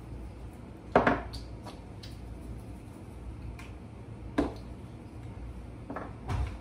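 Spice shakers and bottles being handled and knocked down onto a kitchen countertop: a few sharp clacks, the loudest about a second in, another a little after four seconds and two close together near the end, with fainter ticks between.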